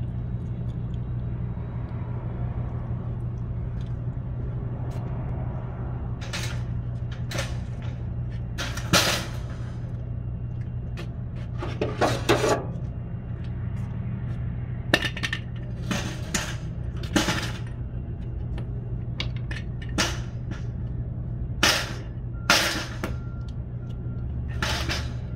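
Hammer blows and sharp metal clanks on the wheel caster of a wire shopping cart lying on its side: about a dozen irregular strikes, starting a few seconds in, over a steady low hum.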